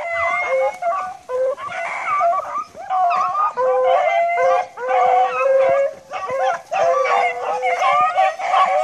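A pack of beagles baying together in full cry, several voices overlapping almost without a break, running a cottontail rabbit's trail.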